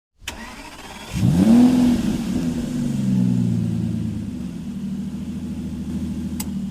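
Car engine starting: a click, then about a second in it catches with a quick rise in revs and settles to a steady idle.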